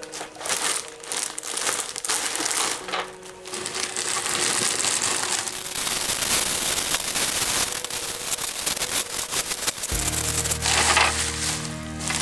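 Crinkling and rustling of plastic packaging being handled, over background music that swells with a low chord near the end.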